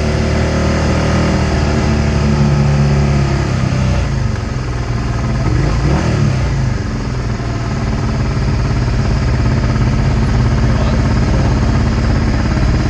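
Motorcycle engine running at low pit-lane speed, heard close up from a camera mounted on the bike. The engine note drops back about four seconds in as the throttle eases, then holds steady.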